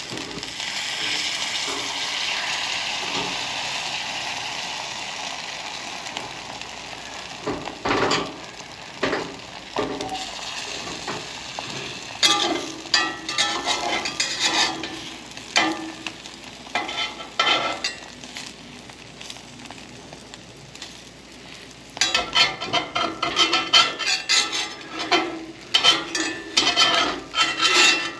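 Eggs sizzling in a cast-iron skillet on a propane camp stove, the sizzle fading over the first few seconds. A metal spatula then scrapes and knocks against the pan in two spells of quick strokes in the second half.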